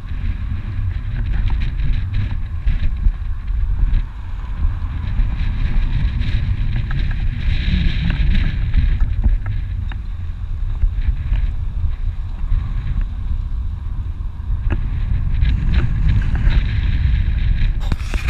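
Strong wind buffeting the camera microphone: a loud, irregular, gusting rumble. Near the end a short rustle as a hand touches the camera.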